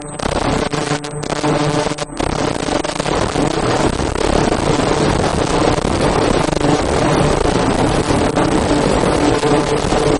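Automatic fish-shaped mask-forming machine running at speed: a steady hum with a dense, rapid clatter of moving parts.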